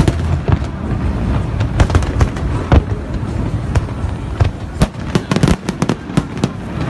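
Aerial fireworks bursting in quick succession: a run of sharp bangs and crackles over a constant low rumble, packed closest together about five seconds in.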